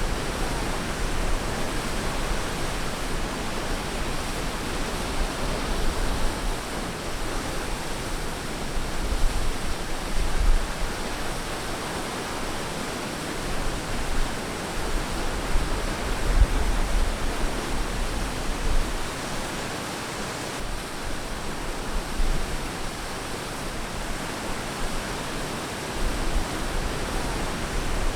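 Ocean surf washing steadily on a beach, a continuous rush of water that swells and eases every few seconds.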